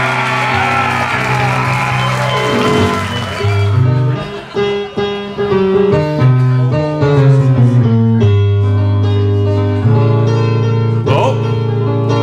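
Korg electronic keyboard playing an instrumental intro, with a bouncing bass line under stepping chords. Audience noise covers the first few seconds and then fades.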